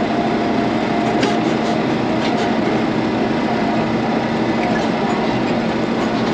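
Excavator engine running steadily, with some rattling and clatter from the working machine. It has just been restarted after refusing to start.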